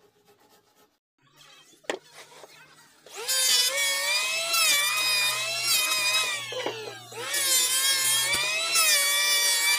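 Electric hand planer cutting along a wooden beam: a loud, high motor whine with the rasp of the blades on the wood, its pitch sagging under load and rising again. It starts about three seconds in, dips briefly around seven seconds, then runs on. Before it, there is only near quiet and a single knock.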